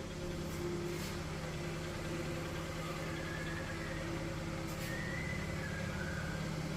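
Airless paint sprayer's motor running with a steady hum.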